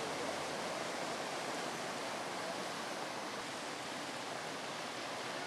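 Steady rushing noise of floodwater running along a flooded street.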